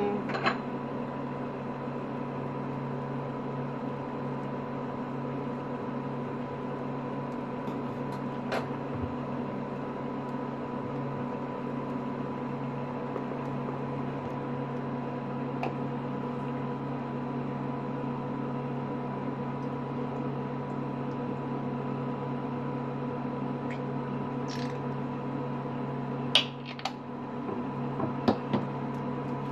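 A steady appliance hum with several fixed tones, unchanging throughout. Near the end a metal spoon clinks and scrapes a few times in the nonstick pan.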